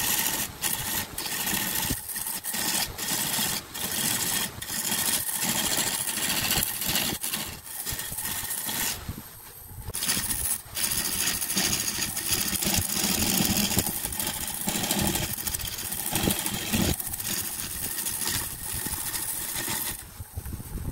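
A turning tool cutting into a segmented wood blank spinning on a wood lathe, with the lathe running: a continuous rough shaving and scraping noise full of short knocks. It drops away briefly about nine seconds in.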